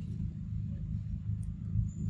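A steady low rumble, with a faint click about a second and a half in.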